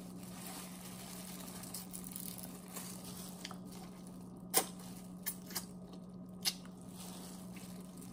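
Faint close-up eating sounds of a person eating seafood: soft wet chewing and handling of the food, with a few sharp clicks in the second half, over a steady low hum.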